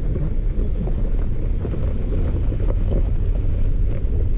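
Wind buffeting the microphone of a camera held out of a moving off-road vehicle's window, a steady low rumble over the sound of the vehicle driving slowly on a gravel dirt trail.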